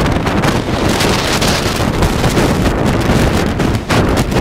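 Wind buffeting the microphone of a helmet-mounted camera on a moving bicycle: a loud, steady rush of noise with a brief dip near the end.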